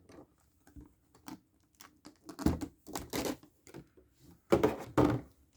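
Cardboard box and plastic packaging handled while a card is pulled out: a string of short taps, clicks and rustles, loudest a few seconds in.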